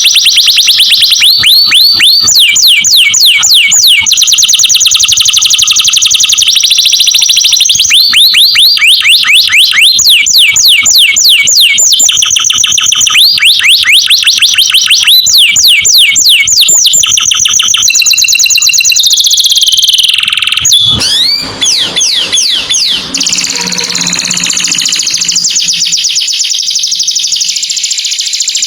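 Canary singing: fast rolls and trills of rapidly repeated high notes, changing to a new phrase every second or two. About twenty seconds in the song breaks off with a falling sweep and a fuzzier, more blurred sound follows.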